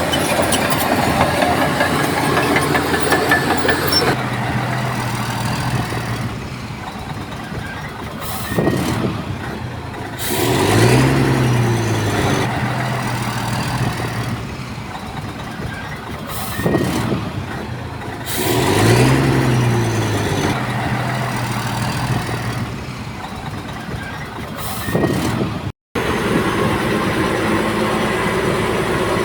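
Heavy diesel construction machinery running, with one engine revving up and back down twice, about eight seconds apart.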